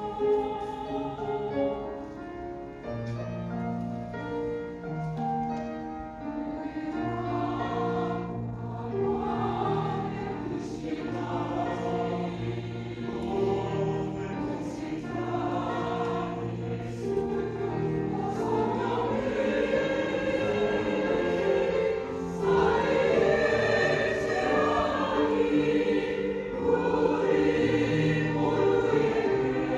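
Church choir singing a sacred anthem in several voice parts, with held, sustained notes; it grows louder and fuller in the second half.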